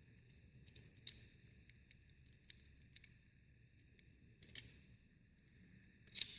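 Faint, light clicks of small metal lock parts being handled as the knob plug clip is fitted onto the lock cylinder, over near silence, with sharper clicks about four and a half and six seconds in.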